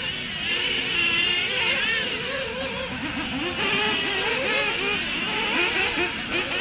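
Several 1/8-scale RC off-road buggies racing, their motors whining and swinging up and down in pitch as they speed up and slow down, several at once overlapping.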